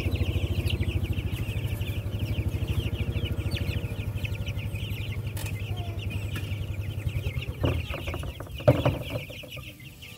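A flock of young meat chickens peeping and cheeping continuously over an idling engine's steady low pulsing. A couple of knocks sound near the end.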